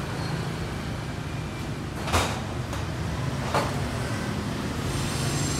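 Steady low hum of an idling vehicle engine, with two short sharp sounds about two seconds and three and a half seconds in.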